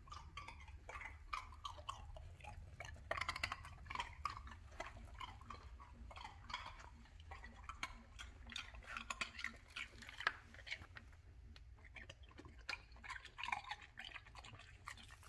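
Faint, scattered clicks and small soft noises from a Brittany puppy moving and shifting on a tiled floor.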